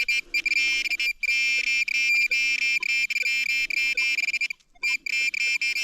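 Handheld metal-detecting pinpointer sounding a high, rapidly stuttering electronic buzz while it is probed through the dug soil, signalling metal close to its tip; the buzz breaks off briefly about a second in and again near the end.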